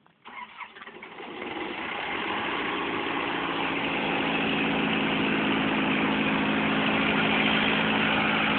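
Engine of a yellow mine machine running steadily. It comes in sharply just after the start, swells over about two seconds, then holds a steady, even hum.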